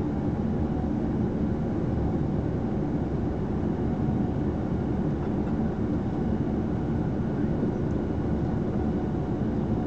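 Steady running rumble heard inside a moving passenger train car: wheels on rails and the train's running gear at speed.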